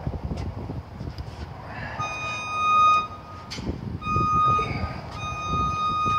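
Aluminium cylinder head of a GM LS V8 being lowered and set onto the block over the new head gasket: low, irregular bumps and clunks as it is handled into place. An electronic beep sounds on and off in the background, in stretches of about a second.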